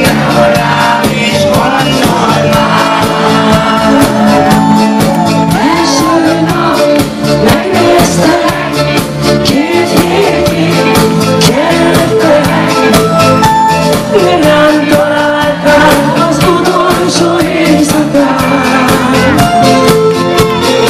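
Live pop band playing a song: singing over electric guitar and a drum kit with a steady beat.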